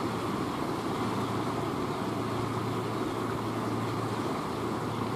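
Steady rushing of a fast-flowing river, an even wash of water noise with no breaks.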